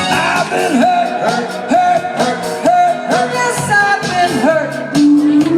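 Doo-wop music: a voice singing short phrases that slide up and down in pitch over a steady beat.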